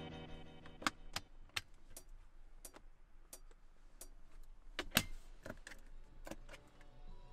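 A string of sharp, irregular clicks, about one to two a second, the loudest about five seconds in, as the music fades out early on.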